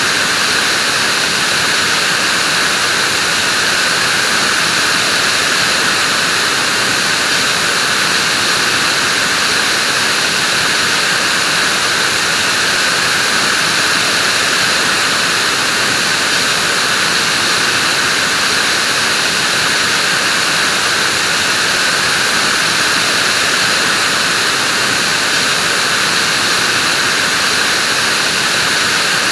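Vacuum cleaner running steadily: a constant, unchanging rushing hiss, strongest in the upper-middle and high range.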